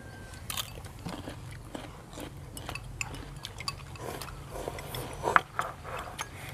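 Chopsticks clicking against porcelain rice bowls and plates, with chewing, during a meal; scattered small clinks, one sharper clink about five seconds in.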